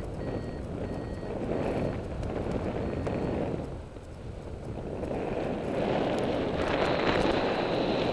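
Airflow rushing over the microphone of a paraglider in flight, easing off about four seconds in and growing louder again near the end. A variometer beeps a few short high beeps in the first three seconds, then holds a steady high tone from about seven seconds in.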